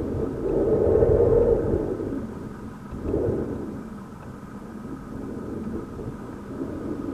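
Thunder rumbling: a deep roll that swells to a peak about a second in and dies away, then a second, shorter roll about three seconds in.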